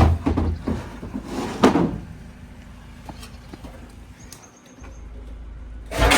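Scrap being loaded into a vehicle. There is a sharp bang at the start, then rattling and knocking for about two seconds, and another loud clattering crash near the end.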